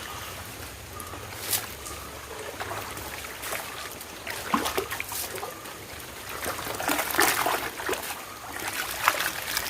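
Water trickling steadily, with scattered small splashes, busier in the second half.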